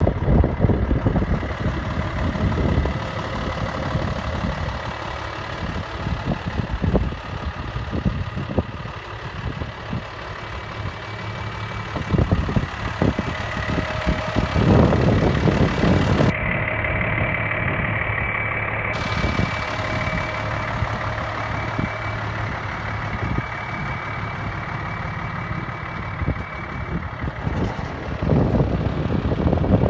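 Hino J08C six-cylinder diesel truck engine idling steadily, with wind buffeting the microphone.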